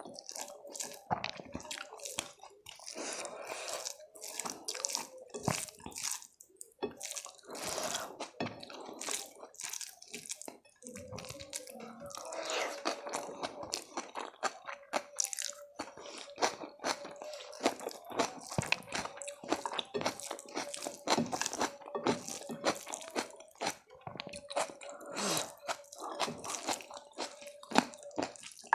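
Close-miked eating sounds: crunching, biting and wet chewing with many small mouth clicks. From about a third of the way in, a faint steady hum sits underneath.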